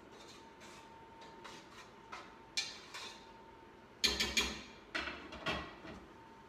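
Cookware handled at the stove while checking a pot of simmering quinoa: a few light clicks, then about four seconds in a short cluster of louder knocks and metal clinks, over a faint steady hum.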